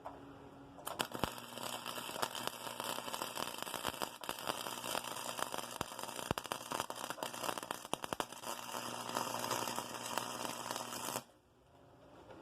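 Flux-core MIG welding arc crackling and sputtering from a small Harbor Freight welder running .030 flux-core wire at high wire speed, with a low electrical hum under it. It strikes about a second in and cuts off sharply near the end as the trigger is released.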